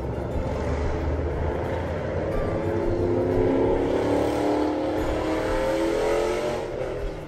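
A motor vehicle driving past, its engine sound building over a few seconds to a peak about halfway through and fading near the end.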